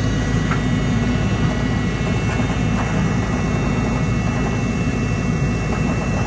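JCB tracked excavator's diesel engine running steadily under load as the machine crawls up onto a truck trailer, a heavy low drone with a faint steady high whine above it.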